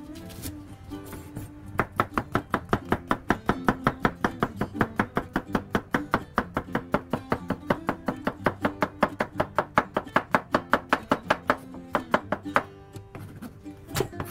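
Kitchen knife slicing a halved cucumber into half-moons on a wooden cutting board: fast, even chops, about five a second, starting about two seconds in and thinning to a few scattered cuts near the end. Plucked-guitar background music plays underneath.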